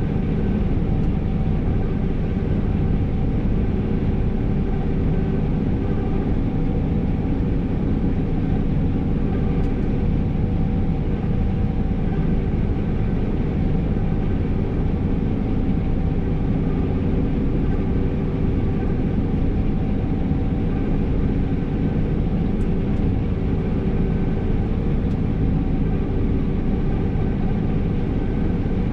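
New Holland CR5.85 combine harvester heard from inside its cab while harvesting: engine and threshing machinery running under load as a steady, unbroken drone with a few held tones.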